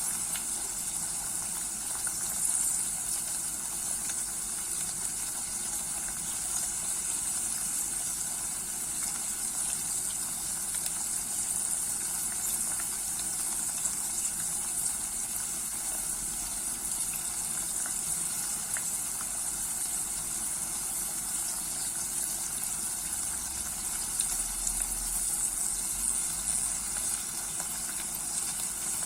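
Homemade syrup mixture simmering in a pot on very low heat: a steady sizzling hiss with scattered faint pops as it begins to thicken.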